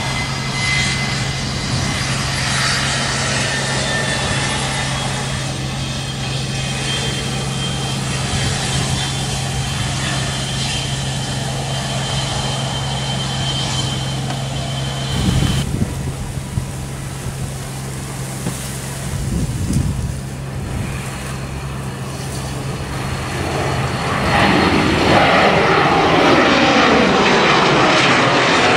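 Twin rear-mounted turbofan engines of a Bombardier Challenger 300-series business jet, running with a steady high whine at low power. About four seconds before the end they grow much louder, at takeoff power as the jet lifts off and climbs past, with a sweeping, swirling tone.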